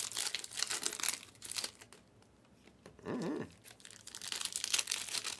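Plastic wrappers of trading-card packs crinkling and rustling as they are handled, in two spells with a short lull between them.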